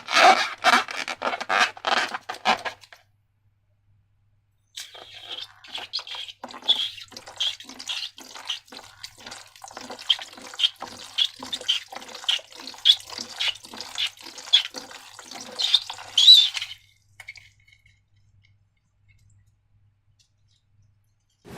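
Slime being worked by hand, making wet, sticky squelches and clicks. They come in a steady rhythm of about two a second, with a short pause a few seconds in, and stop about four seconds before the end.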